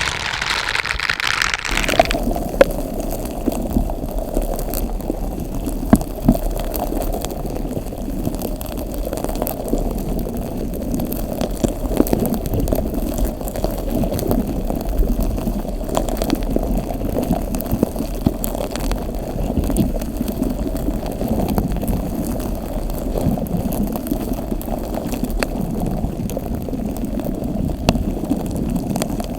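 Slime being squished and kneaded close to the microphone: a continuous low, wet squelching with scattered small pops and clicks. It follows a brief bright rustle of a silicone brush glove that stops about two seconds in.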